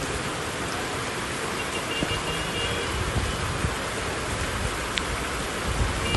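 Torrential rain pouring steadily onto a flooded street: a dense, even hiss with a couple of dull low bumps near the end.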